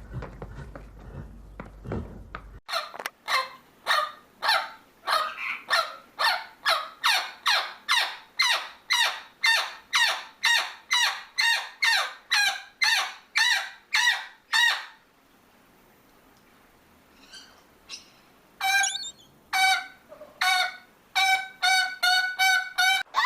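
A bird calling over and over, about two loud calls a second, in a long run that stops suddenly. After a pause, a second series of shorter calls with a steadier pitch begins, speeding up near the end.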